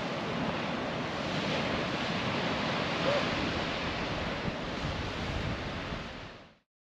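Rough sea surf breaking and washing against a rocky shore, a steady rush of water mixed with wind buffeting the microphone. The sound fades out just before the end.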